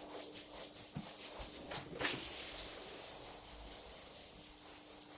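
Sped-up sound of a soaked, foam-covered rug being scrubbed and walked on in rubber boots: a fast run of wet scrubbing strokes and steps over a faint steady hum, with a sudden sharp sound about two seconds in.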